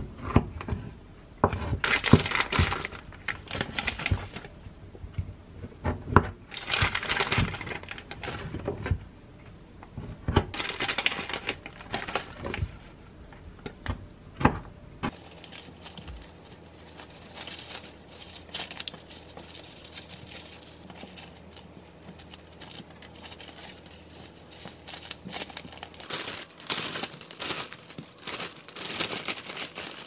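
Plastic wrap and plastic bags crinkling and rustling in repeated bursts as cut crumble bars are wrapped and bagged, with a few sharp knocks of a knife on a wooden cutting board in the first half.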